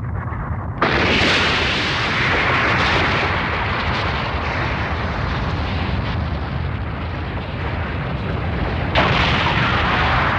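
Animated-film explosion sound effect: low rumbling, then a sudden loud blast about a second in that carries on as a long, noisy rumble. A second blast comes near the end.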